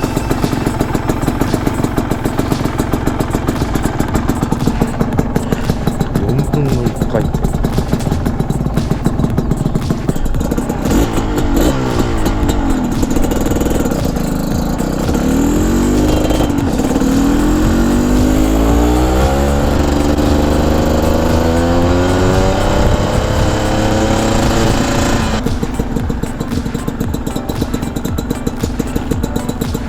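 Honda CRM250R's two-stroke single-cylinder engine running, its revs rising and falling through the middle and settling back to a steady run near the end.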